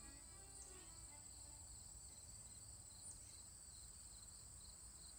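Faint chorus of insects in a summer garden: a continuous high trill with a steady pulsing chirp beneath it, about three chirps a second. The last notes of the music die away in the first second.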